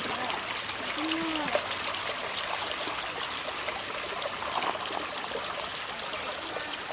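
A creek running over rocks, a steady rush of water. A faint voice is heard briefly about a second in.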